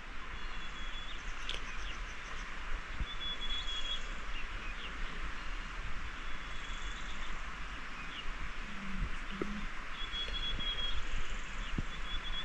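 Outdoor ambience: a steady hiss with short, high bird calls every few seconds.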